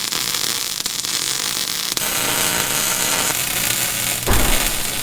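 Electric welding arc crackling and hissing steadily, with a short low knock about four seconds in.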